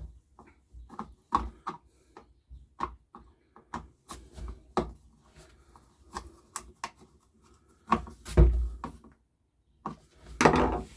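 Irregular plastic clicks and knocks as the engine cover of a Makita BHX2500 leaf blower is fitted back on, with a couple of louder thumps near the end.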